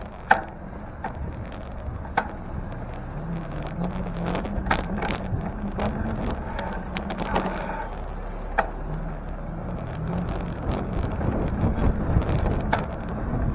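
Street noise while riding a bicycle: a steady low rumble with scattered sharp clicks and knocks, the sharpest just after the start.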